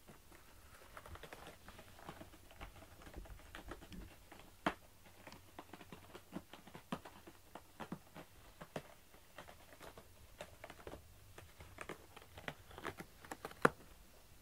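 A cat's paws and claws shifting and scratching in a cardboard box: irregular light taps and scrapes, with a sharper knock about five seconds in and another near the end.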